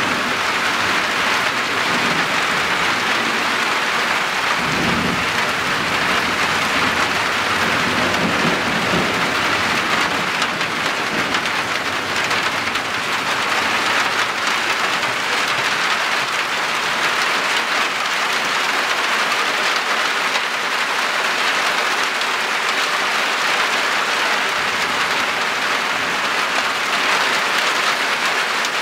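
Heavy summer downpour pouring steadily, with low rumbles of thunder about five seconds in and again around eight to nine seconds.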